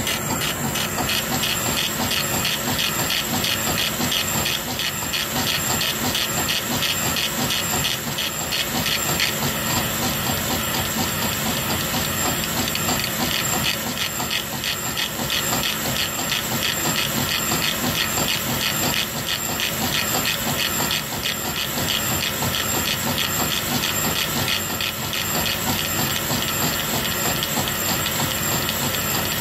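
Laser engraver working, its head moving in rapid back-and-forth strokes while it engraves lettering into a wooden spoon. A steady hiss runs throughout, with fast, even pulsing from the head's movement and a few steady whining tones.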